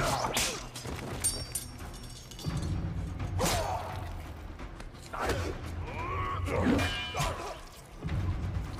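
Staged fight sound effects: several sudden swishes and hits of swung weapons, with strained vocal grunts in the middle, over a low, steady music drone.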